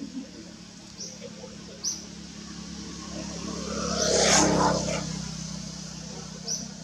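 A motor vehicle passing by, swelling to a peak and fading away over about two seconds, over a steady low hum, with a few short high chirps.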